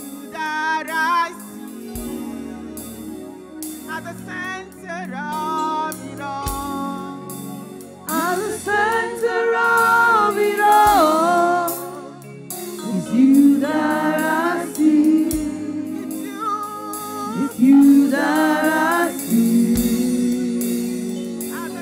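Women's gospel praise team singing a worship song into microphones, with long held notes and vibrato, over steady instrumental backing. A deep bass hit sounds about every four and a half seconds.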